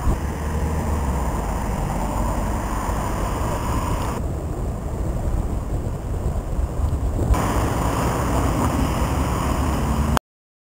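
Wind buffeting the microphone: a steady low rumble under a noisy hiss that thins out for a few seconds in the middle, cutting off abruptly near the end.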